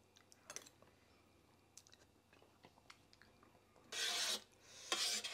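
A man chewing a mouthful of rice and dal, with small clicks of a metal spoon against a brass plate. Near the end come two loud airy sounds about a second apart.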